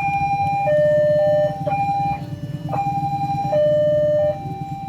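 Railway level-crossing warning alarm sounding two alternating tones, high then low, each held under a second, with abrupt cuts and clicks between them. The alarm is stuttering, which the uploader calls 'coughing'. A steady low engine rumble runs underneath.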